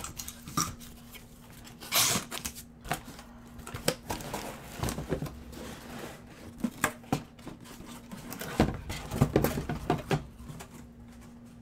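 Cardboard shipping case being opened and handled, with a short ripping sound about two seconds in. Then the case is lifted off and shrink-wrapped hobby boxes knock and scrape as they are moved and set down, with a busier run of knocks near the end.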